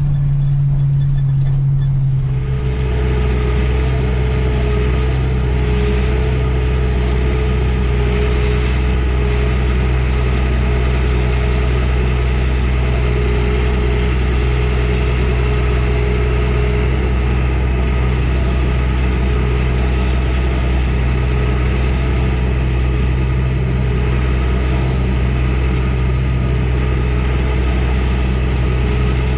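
Older gasoline truck engine running under load, heard from inside the cab. About two seconds in, its note drops lower, then it runs steadily.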